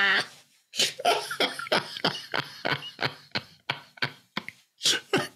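Two men laughing hard in a quick run of short, breathy bursts, several a second, with no words.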